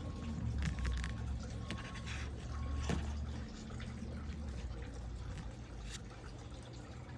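A steady low rumble with a few light clicks and knocks, as pyrite crystals are handled and picked up from a hard surface.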